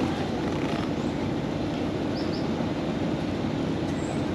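Steady low vehicle rumble, with a pair of short faint high chirps about two seconds in.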